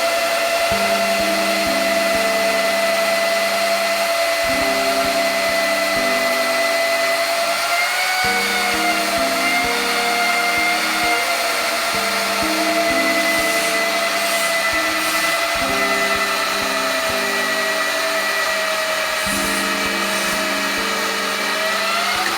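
Electric motor of a Nitto WOJ-3200 magnetic drill running with a steady whine. Its pitch sags briefly about eight seconds in and rises near the end. Background music plays underneath.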